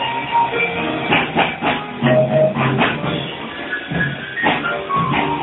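Live jazz band playing an up-tempo tune, with an upright piano played fast and hard over a drum kit and bass.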